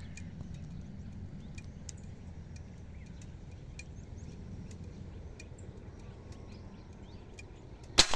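A low steady rumble with faint scattered bird chirps, then near the end a single sharp crack: the Cometa 400 Phoenix spring-piston air rifle firing.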